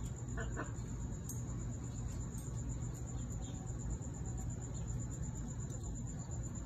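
Cricket trilling in a high, steady, evenly pulsed tone, over a low steady background hum.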